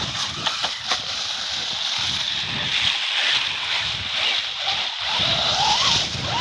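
ZD Racing ZMT-10 RC monster truck driving through dry fallen leaves and grass: a steady crackling rustle of tyres churning the leaves, with a brief rising whine near the end.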